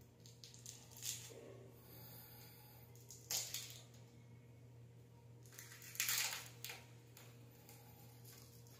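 Faint rustles and scrapes close to the microphone, with two louder ones about three and six seconds in, over a low steady hum.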